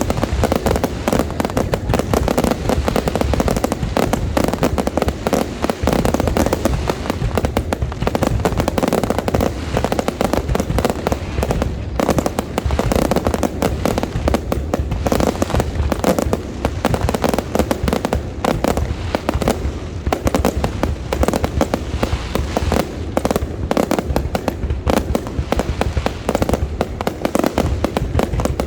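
Fireworks going off in a dense, unbroken barrage: many rapid, overlapping bangs and crackles with no pause.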